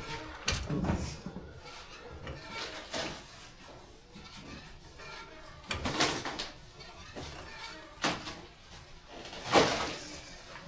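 Scattered clunks and knocks a couple of seconds apart, from a floor jack and a fuel tank being handled and raised into place under a car.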